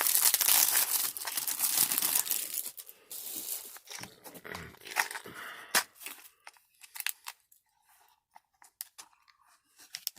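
Packaging being torn open and crumpled: a dense crinkling and tearing for the first few seconds, then scattered crinkles and light clicks that thin out after about six seconds.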